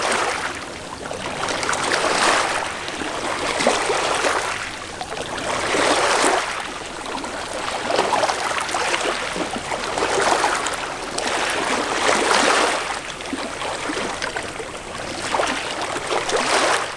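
Small sea waves washing against the shore, a rushing surge every two seconds or so.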